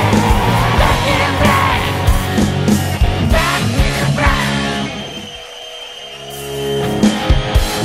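Live rock band playing: electric guitar, bass and drums with a singer's wavering vocal line. About five seconds in, the band drops to a quieter held note for a second or so, then swells back up.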